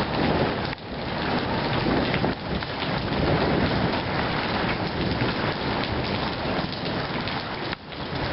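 Hailstorm: hail and rain pelting down in a dense, steady clatter of countless small impacts, dipping briefly about a second in and again near the end.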